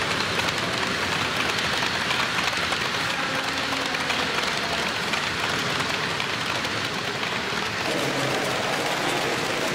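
Model trains running on a layout: a steady rushing hiss of small wheels rolling on the rails, shifting a little in tone about eight seconds in.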